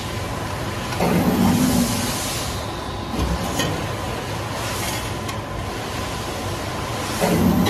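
Hydraulic CNC press brake (Edwards Pearson, 60 ton) running with a steady machine hum. Twice, about a second in and again near the end, a louder, deeper hum lasts about a second as the ram comes down and bends the sheet-metal part. Light clicks of the part being handled come in between.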